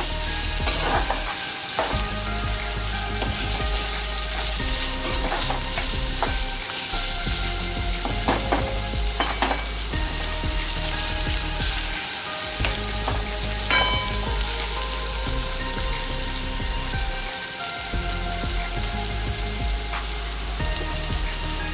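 Sliced onions sizzling in hot oil in a kadhai, sautéing until soft. A steel spatula stirs them, scraping and clinking against the pan now and then.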